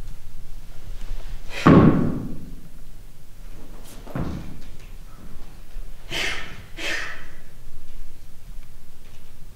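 A long wooden staff hits a wooden stage floor with a heavy thud that rings on in the hall, then knocks again more softly a couple of seconds later. Two short hissing sounds follow close together near the end.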